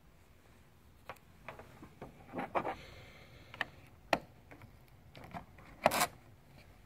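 Handling noise: a scattering of light clicks, knocks and scrapes as a USB cable plug is brought to a laptop's side. The loudest knock comes about six seconds in.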